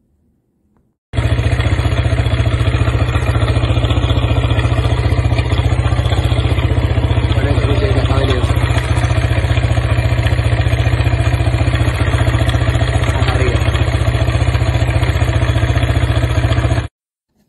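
Corven Touring motorcycle's four-stroke engine running loudly with a rough, ugly mechanical noise over rapid, even pulsing; the sound starts abruptly about a second in and cuts off near the end. The mechanic takes it for a failed ball bearing, whose cage fragments turned up on the magnetic drain plug.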